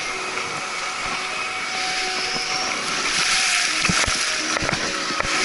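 Surf washing over the sand at the water's edge, a steady hiss of foaming water, with scattered knocks from a jostled, handheld or body-mounted camera.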